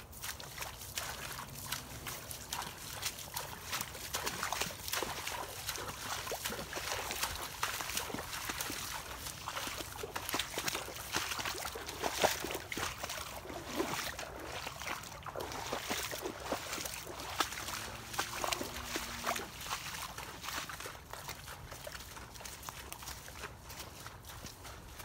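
Footsteps splashing and squelching through shallow floodwater and mud, in an uneven series of wet sloshes.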